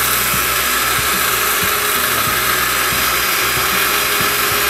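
Electric mixer grinder running steadily at full speed, grinding about half a kilo of dry rice to flour in its stainless steel jar.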